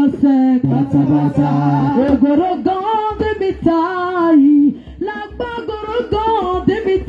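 Amplified singing of a worship song: voices sung into microphones in held, sliding phrases, with a man leading.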